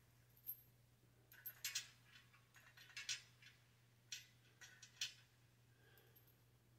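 Several light metallic clicks and clinks, spread a second or so apart: steel washers and bolts being handled and fitted against a steel weight-bench frame.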